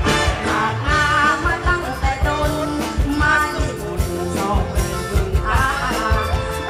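Live Isan mor lam band music with a woman singing a wavering melody into a microphone over a steady drum beat.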